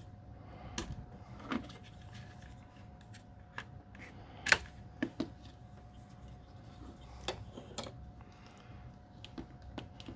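Scattered small clicks and taps as hands handle a plastic power-bar casing and its wires on a wooden bench. The sharpest click comes about four and a half seconds in, with a couple more just after.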